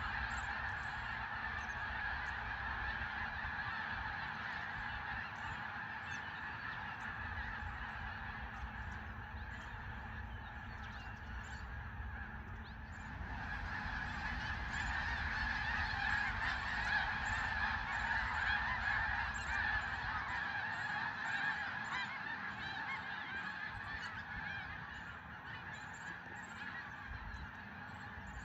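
A large flock of geese honking all at once in a dense, continuous chorus that swells louder about halfway through.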